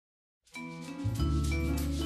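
Background music starting abruptly about half a second in, with a deep bass line joining about a second in and a regular beat.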